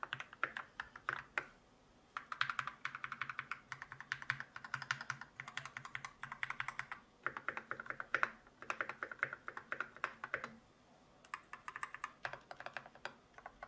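Typing on a Keychron C2 Pro, a tray-mount mechanical keyboard in a plastic case with tactile Banana switches and OSA-profile ABS keycaps: fast runs of keystroke clacks, broken by two short pauses.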